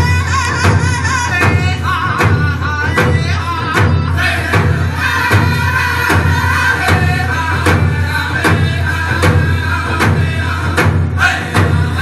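Music with a steady beat and a singing voice, loud throughout.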